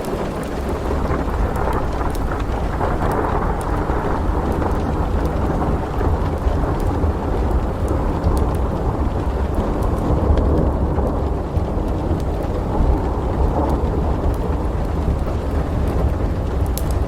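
Steady rain with a continuous low rumble of thunder underneath, swelling near the start and again around the middle, with faint scattered ticks.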